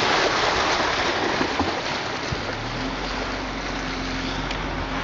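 Car driving across a recycled-plastic vehicle bridge: steady rushing tyre noise with a low engine hum, easing a little after the first second, and a couple of light knocks.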